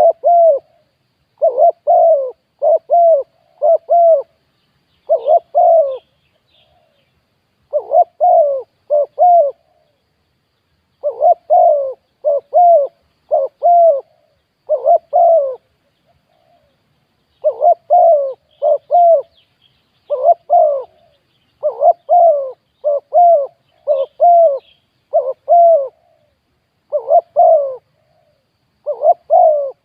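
Spotted dove cooing close to the microphone, in repeated phrases of three to five coos with short pauses between phrases.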